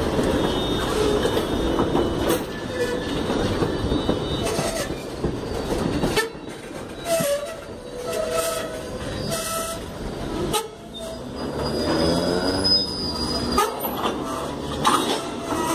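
Railroad tank cars rolling slowly past: steel wheels rumbling and clacking over rail joints, with high whining wheel squeal rising and falling in the second half.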